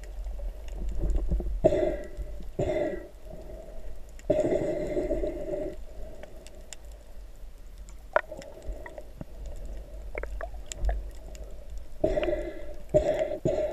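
Underwater sound heard through a camera held below the surface: a steady low rumble of water movement, broken by bursts of snorkel breathing and bubbles, two short ones about two seconds in, a longer one around four seconds, and more near the end, with scattered small clicks.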